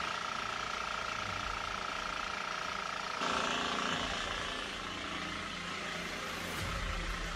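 Engine-driven portable water pump running steadily with a constant high whine over its engine noise, pumping out floodwater. About three seconds in the sound cuts to a brighter, hissier noise without the whine.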